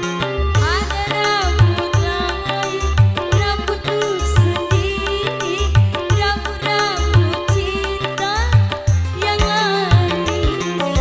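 Live dangdut band playing an instrumental passage: kendang hand drums keep a steady beat under a lead melody with sliding, bending notes.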